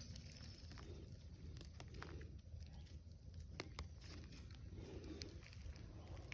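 Quiet outdoor ambience: a faint low rumble with a few soft clicks.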